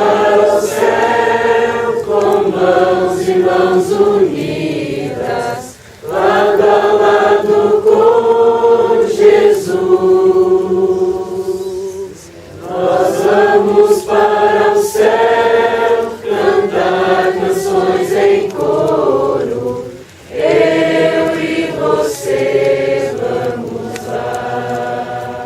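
A group of voices singing a worship song together in long sung lines, with brief breaks between phrases about every six seconds.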